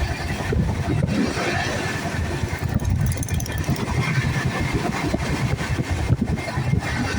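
Train running along the track: a steady, heavy rumble.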